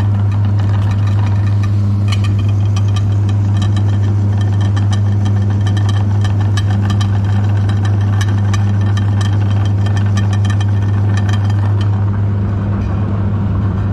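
Electric meat grinder running with a steady, loud motor hum, with many small crackling clicks over it from the cookies being crushed in the auger.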